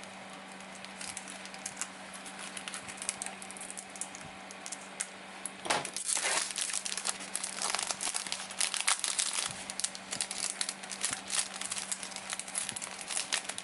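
Kit packaging crinkling and rustling as it is handled and opened, a scatter of crackles that grows busier about halfway through.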